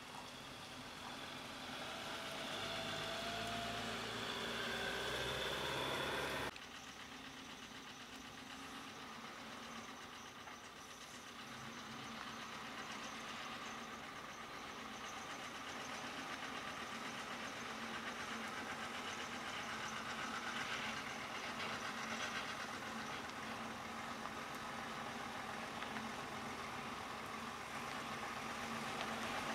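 DAF heavy tractor unit hauling a loaded low-loader, its diesel engine running at slow manoeuvring speed behind an escort van and growing louder as it approaches. The sound drops suddenly about six seconds in, then builds again.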